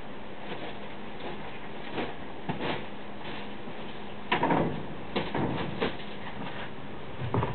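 Scattered knocks and rustles of things being handled and moved, with a busier cluster about four to six seconds in, over a steady low hum.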